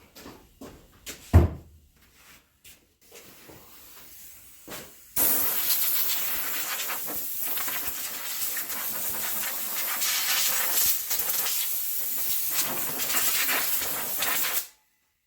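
A few light knocks and clatters, one sharper thump about a second in, then a compressed-air blowgun blowing a steady, loud hiss for about nine seconds that starts and stops abruptly, typical of blowing drill chips out of freshly drilled holes.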